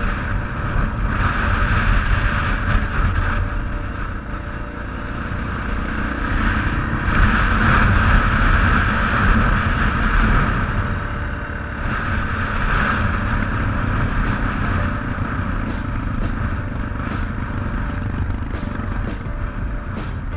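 Yamaha XT600's single-cylinder four-stroke engine running as the motorcycle rides along, growing louder for a few seconds near the middle and then easing back.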